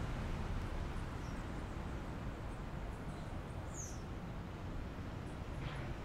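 Outdoor ambience: a steady low rumble with a few brief, high bird chirps over it, the clearest about four seconds in.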